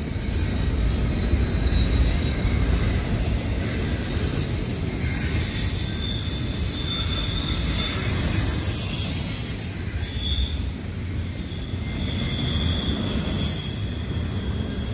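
Double-stack intermodal well cars of a freight train rolling past: a steady rumble of steel wheels on rail, with a thin, high wheel squeal that comes and goes several times.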